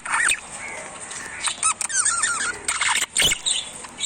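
Parrots giving short squeaky chirps, a few near the start and a quick run of them about a second and a half in, with a sharp knock about three seconds in.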